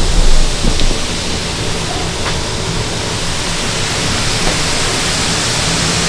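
Steady rushing hiss of the burner firing under a kettle of sugarcane juice, held on a low flame to warm the juice slowly.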